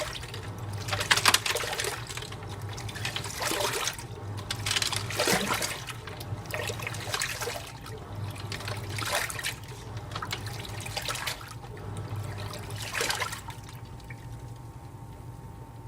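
AQUA MCW-C70 coin-operated 7 kg washing machine in its rinse cycle: water filling and sloshing in irregular surges as the tub agitates, over a low hum. The sloshing eases off about two seconds before the end.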